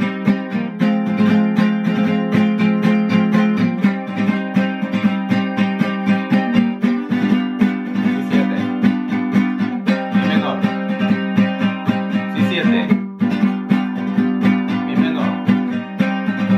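Small acoustic guitar strummed fast and without a break in a zamba rhythm, cycling through the chords E minor, A minor and B7.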